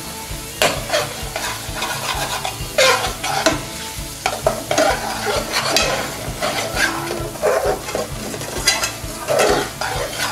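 A long-handled metal spoon scraping and stirring through thick curry sauce in a steel frying pan, in irregular strokes about one or two a second, over a steady sizzle of the oil. The freshly added paprika and Kashmiri chilli powder are being fried so that the spices cook out.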